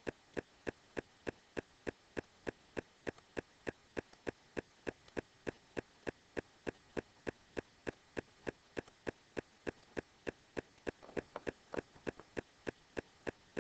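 Faint, steady ticking: evenly spaced sharp clicks at about three a second, keeping an unchanging rhythm.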